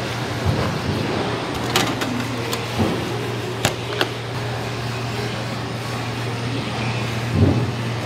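A steady low machine hum over background noise, with a few sharp clicks and taps about two to four seconds in and a soft thump near the end. The clicks and thump come from a filleting knife and a salmon fillet being handled on a plastic cutting board.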